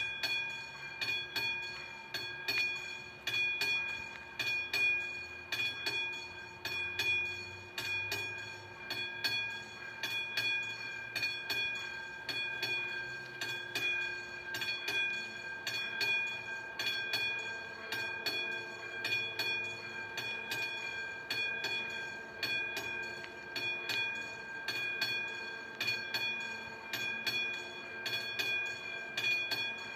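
Railway level-crossing warning bell switching on abruptly and ringing in even, repeated strokes with a sustained metallic ring. It signals that the crossing is closing for an approaching train.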